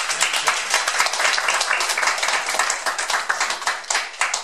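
Small audience applauding: many hands clapping together, thinning toward the end into a few separate claps.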